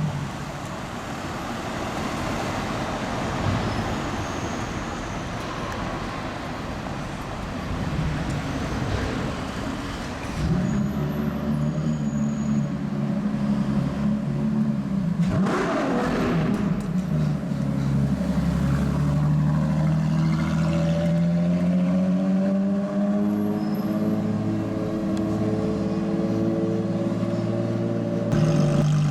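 Street traffic noise, then from about ten seconds in a Ferrari LaFerrari's V12 running steadily at low revs, its pitch slowly rising in the second half. A car passes close by about halfway through.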